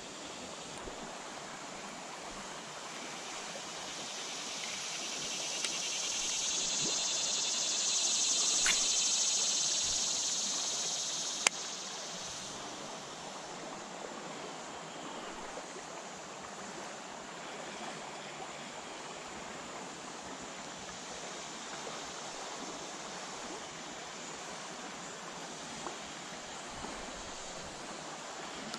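Shallow river water rushing over a riffle, a steady wash that swells louder for several seconds in the first half and then settles. A couple of sharp clicks stand out over it.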